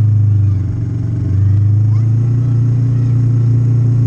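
Yamaha MT-03 parallel-twin engine revved through an Arrow Pro Race slip-on exhaust and held at a steady, raised rpm. The note drops briefly about a second in, then climbs back and holds.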